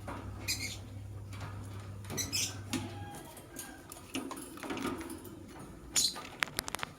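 Lovebirds giving short, harsh chirps a few times, with scratchy rustling and a quick run of sharp clicks near the end. A low steady hum stops about three seconds in.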